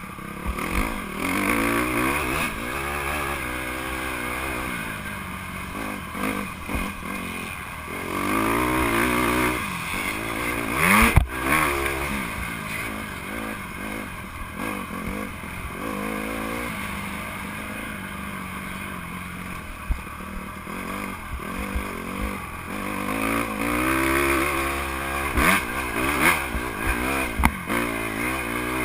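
Honda CRF150R's four-stroke single-cylinder engine revving up and dropping back over and over as the dirt bike is raced through turns and straights, with wind rush on a helmet-mounted microphone. A sharp knock about eleven seconds in.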